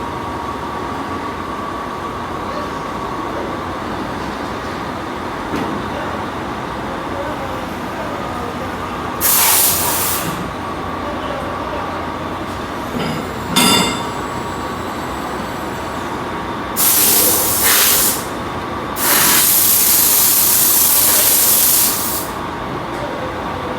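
Portable line boring machine running steadily with a thin whine, broken three times by loud bursts of hiss like compressed air, the last lasting about three seconds. A single sharp metallic clang rings out about halfway through.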